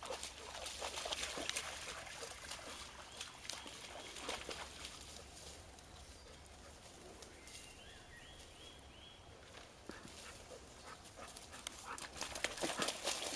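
Golden retriever splashing through a shallow stream and scrambling through dry leaf litter on the bank, a scatter of irregular splashes and rustles that are busiest and loudest near the end as it goes back down into the water.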